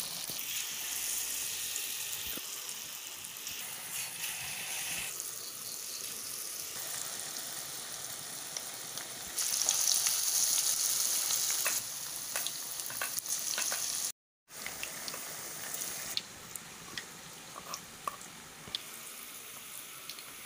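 Masala-batter-coated paneer pieces deep-frying in hot oil in a kadai: a steady sizzle with small crackles. It grows louder for a couple of seconds near the middle, cuts out for a moment about two-thirds through, and then goes on more quietly.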